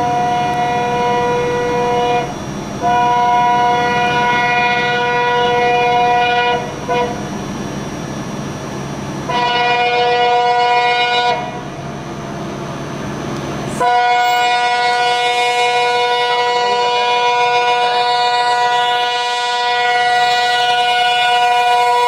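Indian Railways locomotive horn sounding a series of blasts: a short one, one of about four seconds, a brief toot, one of about two seconds, then a long unbroken blast through the last third. A low rumble lies under the earlier blasts.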